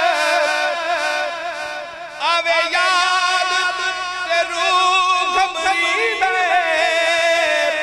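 A man's voice singing a devotional quatrain (rubai) through a microphone and PA, in long, wavering held notes. There is a short break about two seconds in before the next phrase.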